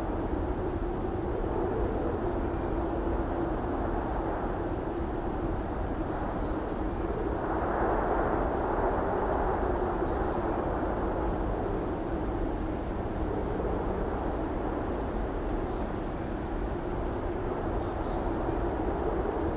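Steady vehicle running noise: a low rumble with a constant hum, swelling louder for a couple of seconds about eight seconds in.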